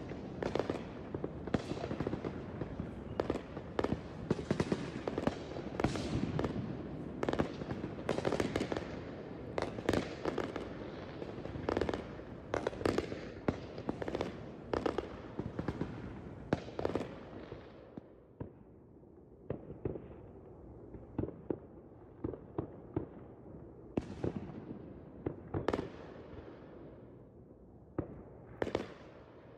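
Fireworks going off in a rapid string of sharp bangs and crackling pops. About two-thirds of the way in the barrage thins to scattered, quieter pops, with a few louder bangs near the end.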